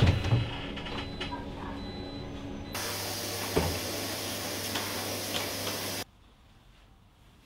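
Inside a city bus, low running rumble with a thump at the start. Then a vacuum cleaner runs with a steady hiss over a low hum for about three seconds, and it cuts off suddenly into faint room tone.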